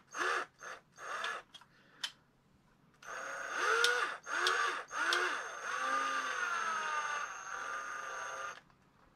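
Cordless drill-driver run in several short trigger pulses, its motor whine rising and falling in pitch each time, then held for about five seconds at a wavering speed with a steady high whine over it and a few clicks.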